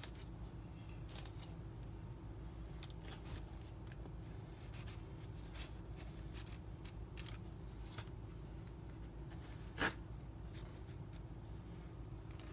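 Faint scraping and clicking of a dull spoon being sawed through a sandwich, over a steady low hum, with one sharper knock about ten seconds in.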